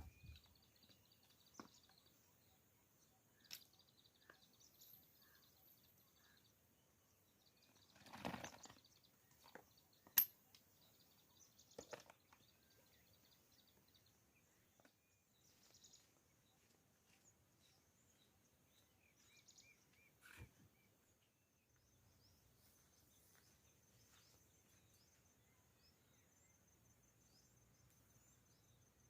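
Faint forest ambience: small birds chirping and trilling, with a few scattered knocks and clicks, the sharpest about ten seconds in, and a thin high steady trill near the end.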